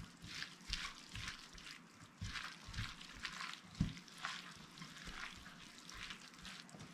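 A gloved hand tossing and squeezing a wet salad of marinated zander strips and sliced vegetables in a glass bowl, working it until the salt and sugar dissolve. It makes an irregular run of soft, wet squelches, with one sharper knock about four seconds in.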